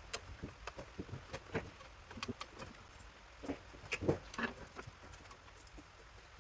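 Irregular small clicks and light knocks of hand tools and loose metal parts being handled while a power supply unit is taken apart, a few louder knocks around the middle.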